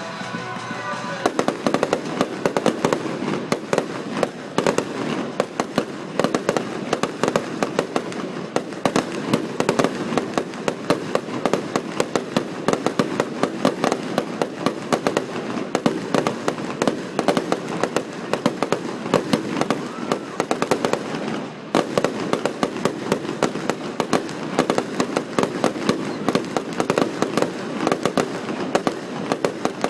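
Fireworks show: aerial shells bursting in a dense, rapid barrage of bangs and crackles, starting about a second in.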